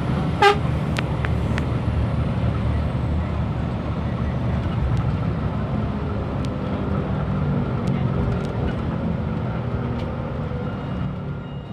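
Mercedes-Benz OF 1623 RF bus's front-mounted diesel engine running under way, heard from inside the passenger cabin along with road noise. A short beep sounds about half a second in.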